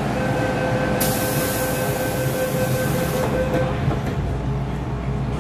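Door-closing warning tone on an MTR M-Train, a steady two-pitch tone lasting about three and a half seconds. A loud hiss sounds over it from about a second in until near 3 s. The doors shut with a thud about 4 s in, and the low rumble of the train starting follows.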